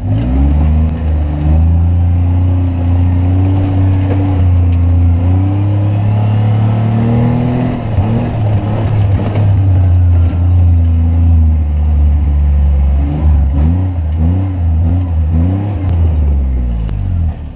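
Small farm utility vehicle's engine running as it is driven, holding a steady pitch for a while, then several quick revs up and down near the end.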